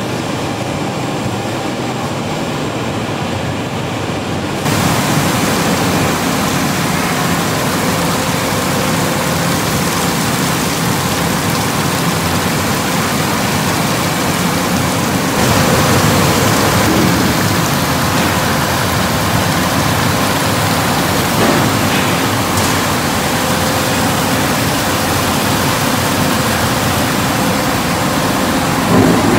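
NON Food Machinery shrimp cooking line running: at first the steady hum of conveyor belt drives with a few held tones, then about five seconds in a louder, even rushing hiss of water and steam over the running machinery.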